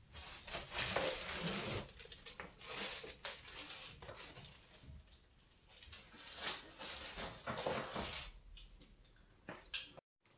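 Protective plastic bag around a flat-screen TV panel crinkling and rustling in several bursts as the set is handled, lifted and laid flat, cutting off suddenly near the end.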